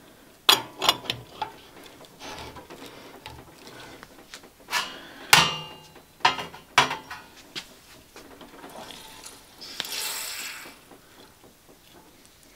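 Metal clanks and clicks as a portafilter is seated and locked into the group head of a 1957 Faema Marte lever espresso machine, loudest about five seconds in. About ten seconds in comes a short hiss as the lever is worked to start the shot.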